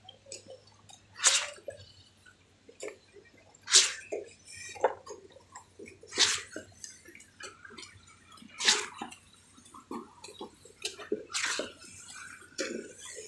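Concrete pump surging wet concrete out of its hose onto a slab: a splashing whoosh about every two and a half seconds, one per pump stroke, with softer knocks in between.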